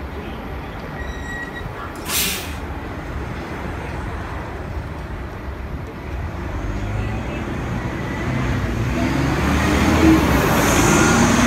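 Nova Bus LFS articulated city bus. There is a short sharp hiss of released air from the bus's air system about two seconds in. Then its engine grows louder as the bus drives past close by, with a rising whine near the end as it pulls away.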